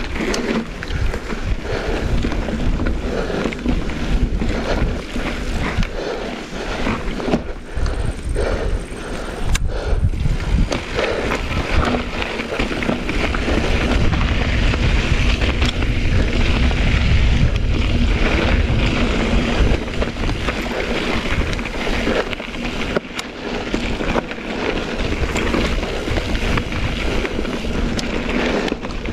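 Mountain bike rolling along a narrow rocky dirt trail: tyres on gravel and stones, with many small knocks and rattles from the bike over rough ground, and wind buffeting the microphone, strongest about halfway through.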